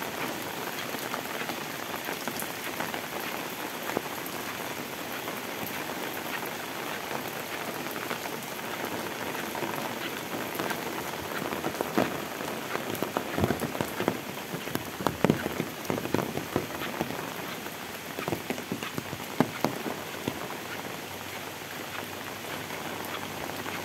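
Heavy rain falling steadily on a wet paved road and leafy vegetation, an even hiss of drops. For several seconds in the middle, sharper and louder drop impacts land close by.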